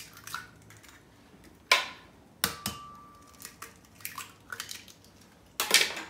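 Eggs cracked on the rim of a glass blender jar: a few sharp taps and crunches of breaking shell, the loudest about two seconds in and near the end.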